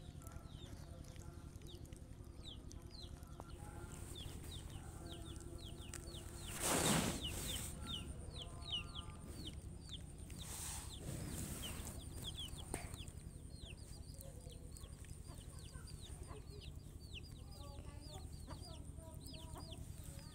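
Rapid, high, falling chirps of small birds or chicks, repeated many times, with lower clucking calls of fowl in between. A brief rush of noise about seven seconds in, with a smaller one a few seconds later.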